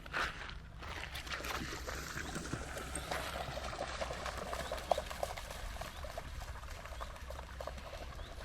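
Dog splashing through shallow river water, with water trickling and lapping around it.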